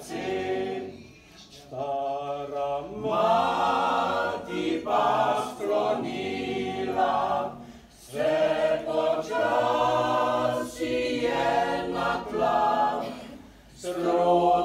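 Choir singing a cappella in Slovenian, a slow song in long phrases with short pauses between them.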